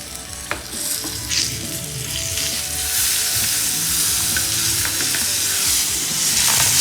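Banana-leaf-wrapped pomfret frying in oil on a hot tawa, sizzling steadily, with a couple of sharp knocks of a utensil as the parcel is turned over. The sizzling grows louder after the turn.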